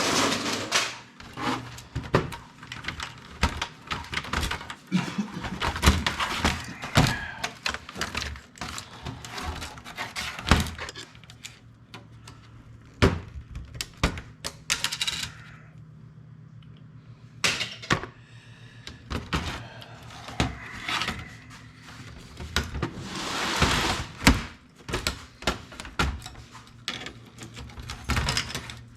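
Desktop computer cases being taken apart by hand: repeated irregular knocks, clanks and scrapes of metal case parts and panels being pulled, dropped and handled.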